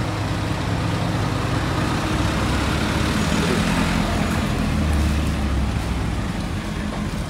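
Road traffic noise with a motor vehicle engine running close by, its low drone swelling around the middle and easing off near the end.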